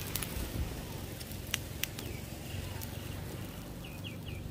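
Strong grill fire burning with a steady low rumble and a few sharp crackles. A bird chirps several quick notes near the end.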